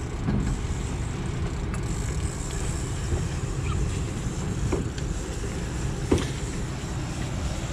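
A boat's engine running with a steady low rumble, with a couple of faint ticks over it.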